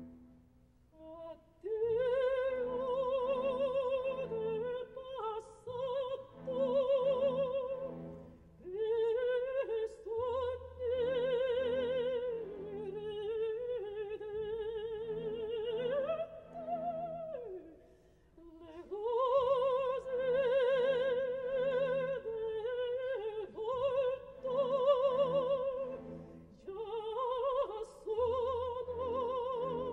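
Operatic soprano singing with wide vibrato over a soft orchestra, in long sustained phrases with brief pauses between them.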